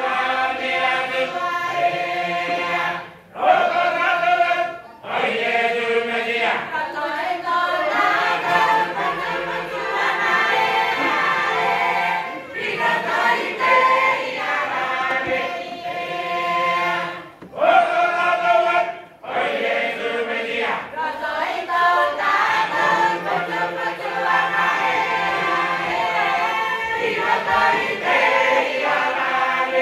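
A large mixed group of men, women and children singing together as a choir, in sustained phrases with short breaks between them a few seconds in and again about two-thirds of the way through.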